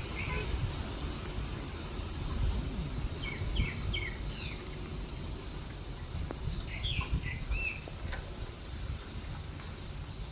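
Small birds chirping in short falling calls, in clusters about a third of the way in and again past the middle. A thin high chirp repeats about twice a second throughout, over a steady low rumble.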